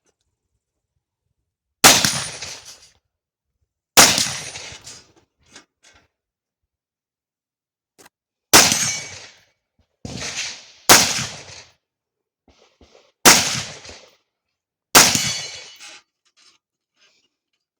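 Carbine shots fired one at a time during a practical-shooting stage: about seven sharp reports spaced one to four seconds apart, each trailing off in a short echo, with faint ticks between some of them.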